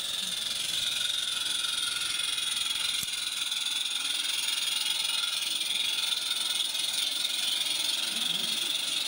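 Steady, high-pitched hiss of small 16mm-scale live steam locomotives working along a garden railway, with a single faint click about three seconds in.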